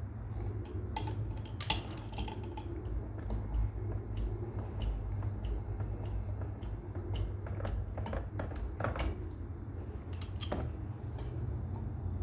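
Scattered light metallic clicks and clinks, like metal parts or tools being handled, over a steady low hum.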